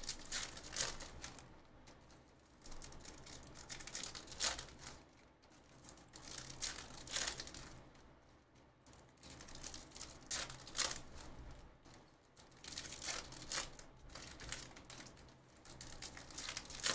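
Trading-card pack wrappers crinkling and tearing as the packs are ripped open by hand, in short irregular rustles every second or two with quieter pauses between.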